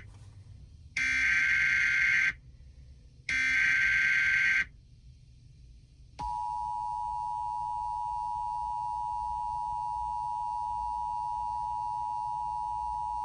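Emergency Alert System tones: two bursts of SAME digital header data, each just over a second long with a short gap between, then, after a pause of about a second and a half, the EAS two-tone attention signal starts about six seconds in and holds steady. This is the opening of a Required Monthly Test alert.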